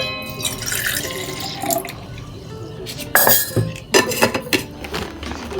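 Water running from a tap into a sink, with a few sharp clinks of glass and tableware about four seconds in.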